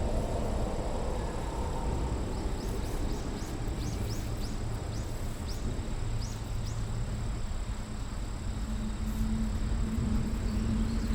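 Countryside field ambience: a steady low rumble, a small bird's run of short chirps, and a steady high insect whine, with a low hum coming in near the end.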